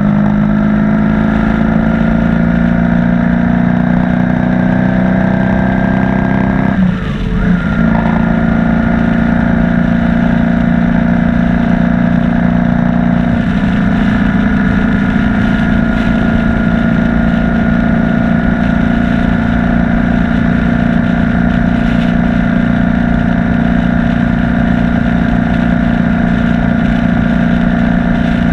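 BMW R1200 boxer-twin motorcycle engine running while riding. Its pitch climbs slowly, breaks off briefly about seven seconds in, then holds steady.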